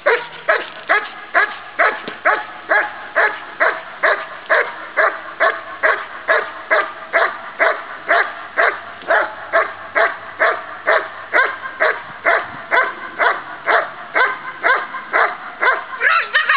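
German Shepherd barking steadily and rhythmically at a hiding blind, about two barks a second, the last one sliding down in pitch. This is the bark-and-hold of IPO protection work: the dog keeps barking to hold and announce the helper hidden in the blind.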